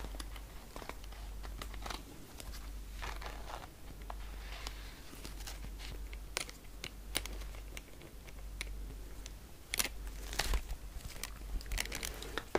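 Close-up ASMR handling of a glossy quilted pink wallet: fingernails tapping and scratching its surface, with crinkling rustles and scattered sharp clicks, busier and louder about ten seconds in.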